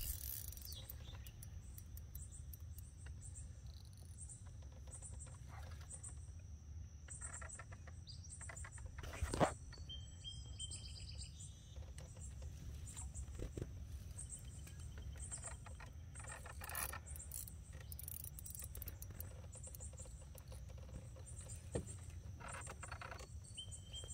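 Birds chirping and calling in short repeated phrases over a steady high insect trill, with a low steady rumble underneath. A single sharp knock sounds about nine seconds in.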